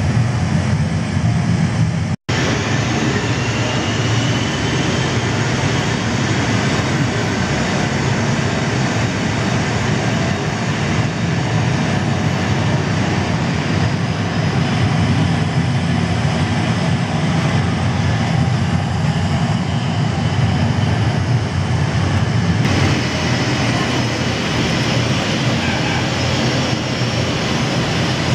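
Recorded jet-airliner engine noise played through loudspeakers at a model airport, a steady roar with a faint rising whine just after a momentary break about two seconds in.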